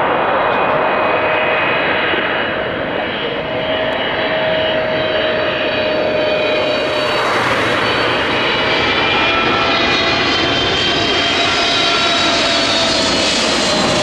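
Boeing 777F freighter's GE90 turbofans on final approach, passing low. A loud steady jet noise with a fan whine that sinks slightly in pitch in the second half.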